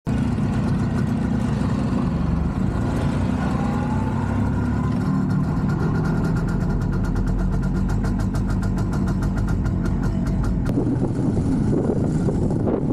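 Two-stroke motorcycle engine running steadily, with a fast regular ticking for a few seconds in the middle. About eleven seconds in, the sound changes abruptly to a rougher, noisier rush.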